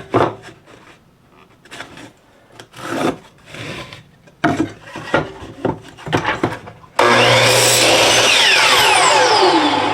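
Wooden boards being handled and knocked for several seconds, then about seven seconds in a power saw starts abruptly and runs loud through a cut in a cedar fence picket, its whine sliding down in pitch.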